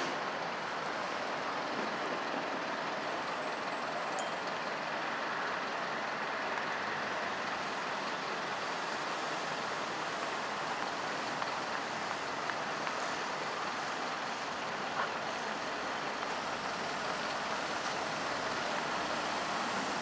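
Steady city street noise with a Basel BVB tram rolling slowly along its tracks. It is an even hum and hiss with no distinct events.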